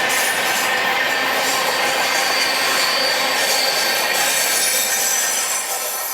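Freight train wagons rolling past with a steady grinding screech from the wheels. It dies away near the end.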